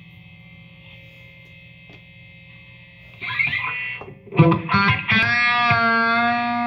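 Electric guitar played through distortion: a quiet steady buzz for about three seconds, then picked notes and chords, and from about five seconds in a long sustained distorted note with a slight waver.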